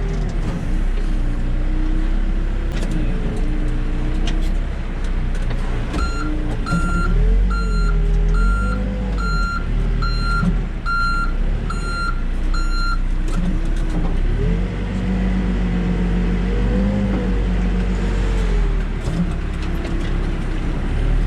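Backhoe's diesel engine running, its pitch rising and falling as it works. A reversing alarm beeps about nine times, a little more than once a second, from about six seconds in to about thirteen.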